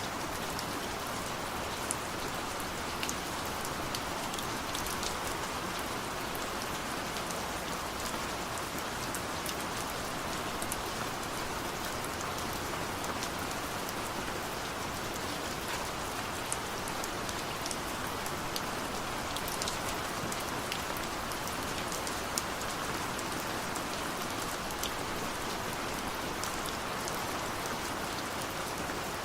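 Heavy rain falling steadily, with the fine patter of individual drops striking a surface.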